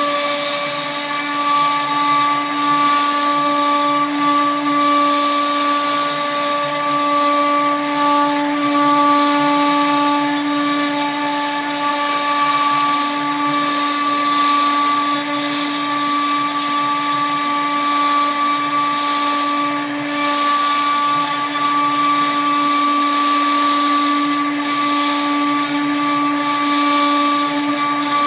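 CNC router spindle running steadily while it cuts grooves into a large sheet: a steady whine made of several fixed tones, with the hiss of the cut over it.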